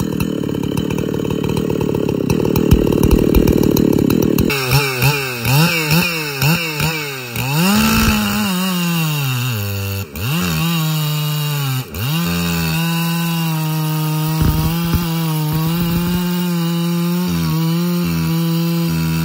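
Two-stroke chainsaw at full throttle: rough and noisy for the first few seconds, then revved in quick blips with its pitch swooping up and down. From about twelve seconds in it holds a steady high pitch while cutting through a log.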